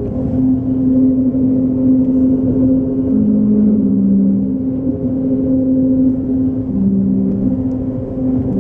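Car tyres running over a steel grate bridge deck: a steady droning hum over road and wind rumble inside the car, its pitch stepping slightly now and then.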